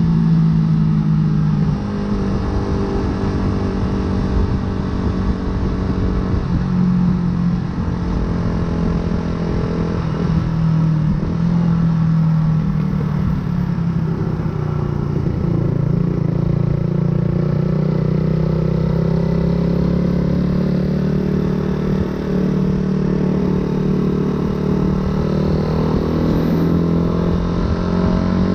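Yamaha YZF-R125's single-cylinder four-stroke engine through an aftermarket full exhaust, pulling the motorcycle along at steady revs. The pitch dips and rises a little, then climbs slowly over the second half as the revs build.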